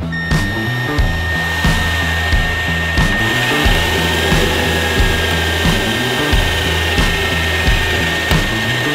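Milwaukee cordless drill running with a steady high whine as it bores through a car's sheet-metal firewall, over background music with a steady beat.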